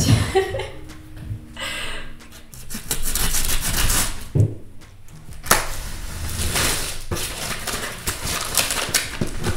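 A box cutter slicing through the packing tape on a cardboard shipping box, with scraping on the cardboard, then paper rustling and tearing as the packing slip is pulled off the top.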